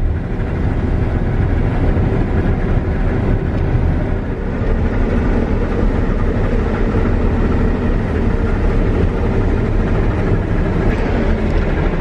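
Claas Lexion 740 combine running steadily while harvesting soybeans, heard from inside the cab: a continuous deep engine and machinery drone with the engine under load.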